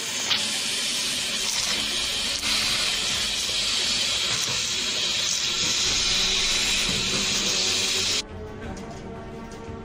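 Vacuum cleaner sucking dust out of the inside of a fresh-air ventilation duct through its corrugated hose: a steady, loud hiss of rushing air that stops abruptly about eight seconds in.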